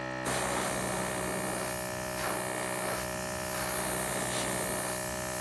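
Airbrush spraying paint: a steady hiss of air starting about a quarter second in, over the steady hum of a small airbrush compressor motor.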